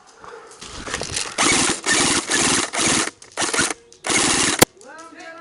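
Airsoft electric guns firing a series of short full-auto bursts, each about half a second long, with the buzzing gearbox sound of the guns. A single sharp crack comes near the end.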